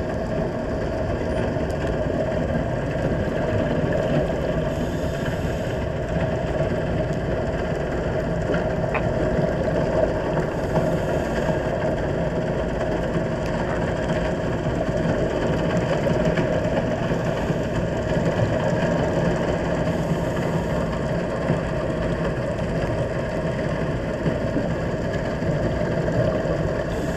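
Steady, muffled underwater rumble heard by a camera underwater, with a brief faint hiss every six seconds or so.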